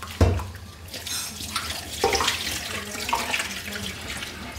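Water splashing and sloshing in a stainless steel bowl as chopped snake pieces are rinsed by hand in a sink. A loud knock about a quarter second in and a softer one about two seconds in.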